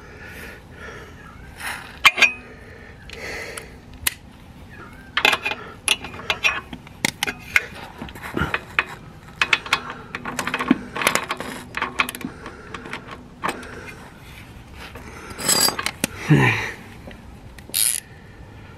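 Irregular metallic clicks and clinks of a spanner and loose nut and bolt being worked on a motorcycle's lower rear shock mount, as the fastener is undone.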